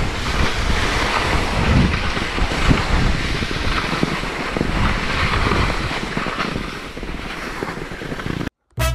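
Skis sliding over spring snow while skiing downhill, mixed with wind buffeting the microphone: a steady rushing, scraping noise. It cuts off suddenly near the end, and music begins.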